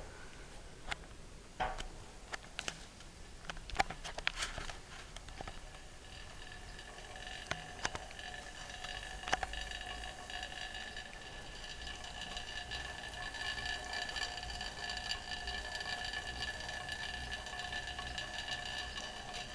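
BH SB2 chain-drive spinning bike: a few sharp clicks and knocks over the first several seconds, then the chain and flywheel whir as it is pedalled, a steady whir with a few fixed tones that builds up over several seconds and then holds.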